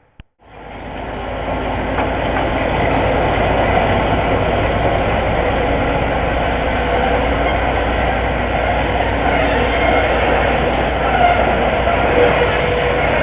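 Train running on rails: a steady, loud rumble with rail noise that comes in suddenly just after a brief cut at the start.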